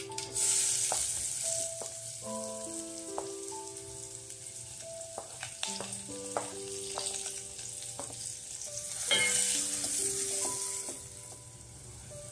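Chopped onions hitting hot oil tempered with cumin and mustard seeds in a small steel pan. They sizzle loudly about half a second in, then keep frying while a steel ladle stirs and clinks against the pan. A second loud sizzle comes about nine seconds in as chopped green chillies go in.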